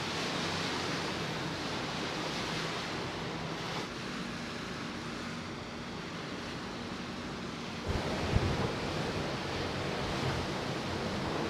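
Wind and rushing water from a car ferry under way, heard from the open deck, with a faint steady low hum. About eight seconds in the sound changes abruptly and wind starts buffeting the microphone in gusts.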